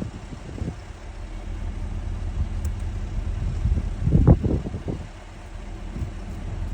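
Diesel engine of a JLG 1255 telehandler idling steadily, with a brief louder noise about four seconds in.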